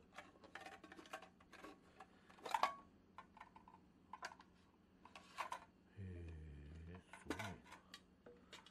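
Aluminium mess tins and their lids clinking and knocking as they are handled, fitted together and set down: a string of light metallic taps. About six seconds in, a low wobbling tone lasts for about a second.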